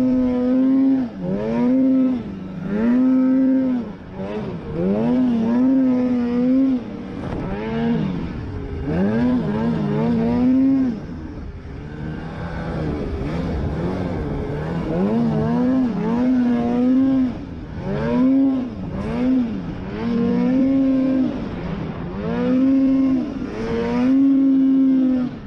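Snowmobile engine revving over and over, its pitch climbing, holding briefly, then dropping, about once every second or so.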